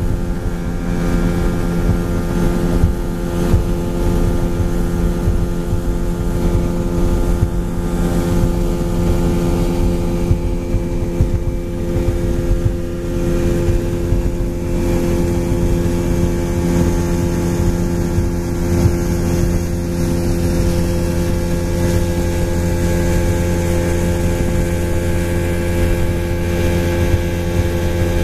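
Outboard motor of a small boat running steadily at cruising speed, a constant engine drone with the rush of water and wind around the hull.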